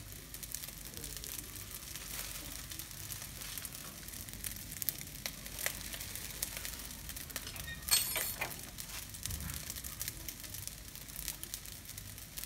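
Plastic bag crinkling in hand, with a denser burst of crackling about two-thirds of the way through, over the light sizzle of rice frying in a pan.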